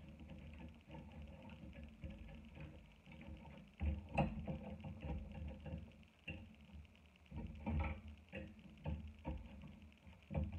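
Metal fork clicking and scraping against a plate as it tosses sauce-coated chicken wings and hot Cheetos, in irregular strokes with the loudest clatter about four seconds in, over a low steady hum.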